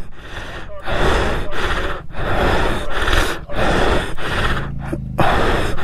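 Heavy, gasping breathing close to the microphone, in gusts about a second apart. A faint low steady hum comes in about four seconds in.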